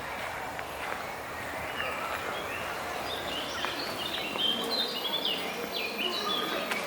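Small songbirds chirping in a quick run of short high notes through the second half, over a steady background hum of outdoor ambient noise.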